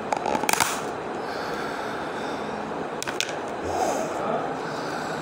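Thin clear plastic lid crackling and clicking as it is pulled off a plastic takeaway food container, in the first second. A single sharp click follows about three seconds in, over a steady background hiss.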